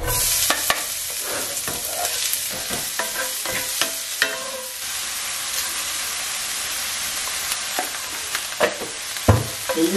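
Chopped onion tipped into hot oil and cumin seeds in a cast-iron skillet, sizzling at once and then settling into a steady sizzle. A wooden spatula knocks and scrapes against the pan while stirring in the first half, with one low knock near the end.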